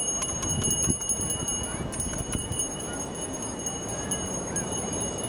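A small bell shaken rapidly and continuously, giving a steady high ringing over fast jingling clicks, with beach chatter underneath.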